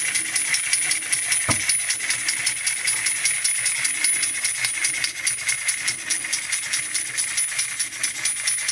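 Wind-up toy monkey's small brass cymbals clashing in a rapid, even rhythm as its clockwork walks it along, the cymbals ringing on between clashes.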